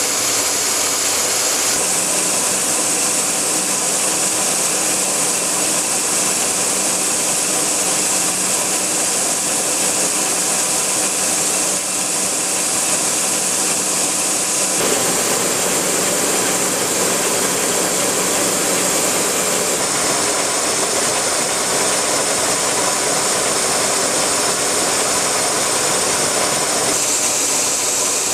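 Kearney & Trecker (K&T) milling machine with a vertical head running a roughing end mill through the steel of a railroad rail. A loud, steady cutting noise with the hum of the mill's drive under it and a high hiss over it.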